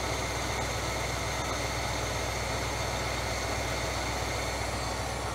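1975 Chevrolet C20 pickup's engine idling steadily as it warms up, a few minutes after its first start since sitting unused for years.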